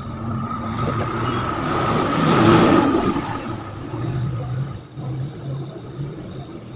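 A vehicle passing by: a rushing noise that swells to a peak about two and a half seconds in and then fades away.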